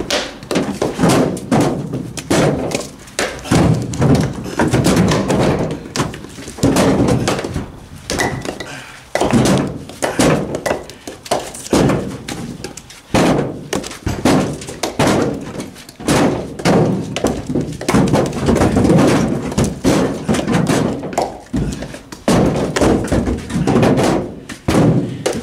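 Split firewood being unloaded by hand from a pickup bed and tossed onto a woodpile: an irregular run of loud wooden knocks, about one to two a second, as pieces land and strike each other.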